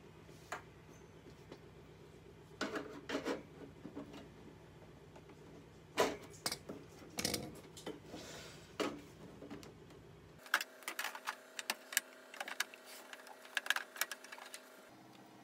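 Hands and a screwdriver handling a desktop computer tower's metal case as its side panel is taken off: scattered clicks, knocks and short scrapes, coming thicker and faster near the end.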